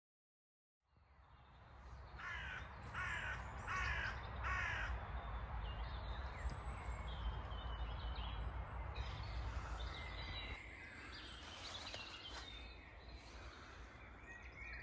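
After a second of silence, the sound fades in. A crow caws four times in a row, followed by scattered chirps of other birds over a low steady rumble.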